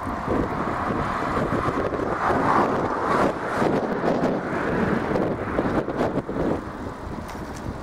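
Cars passing on the road beside a moving bicycle, the noise swelling and fading twice as vehicles go by, with wind rushing over the microphone.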